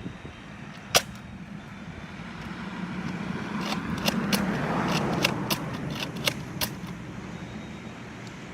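A car passing by, its road noise swelling and fading in the middle, with sharp clicks over it: one loud click about a second in and a quick run of clicks while the car goes past.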